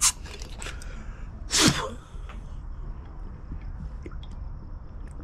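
A man sneezing hard once, about a second and a half in, after a short sharp sound at the very start.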